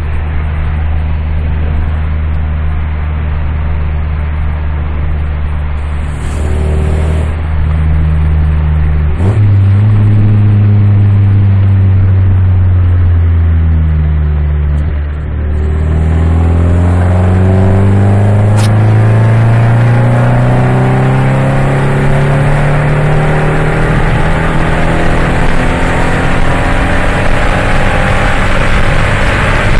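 Ford Focus 2.5's engine and exhaust with a heavy rumble. It idles steadily, jumps in engine speed about nine seconds in and sinks back, then from about fifteen seconds in its note climbs slowly and steadily as the engine speeds up.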